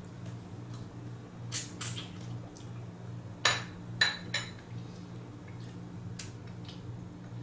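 Utensils and dishes clinking: about half a dozen sharp clinks, the loudest three in quick succession past the middle, over a steady low hum.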